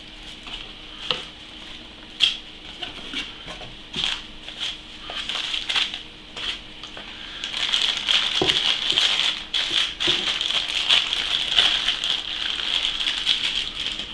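Packaging and plastic parts being handled while unboxing a fan controller: scattered clicks, taps and rustling, becoming busier about halfway through.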